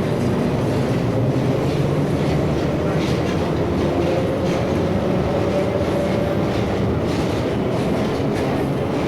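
Train running on the rails: a steady rumble with scattered wheel clicks and a faint whine that slowly shifts in pitch.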